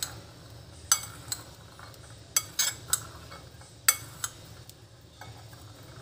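A metal spoon stirring a mixture of boiled chickpeas and chopped vegetables in a ceramic bowl, clinking sharply against the bowl about seven times at irregular intervals, with soft scraping between and fewer clinks near the end.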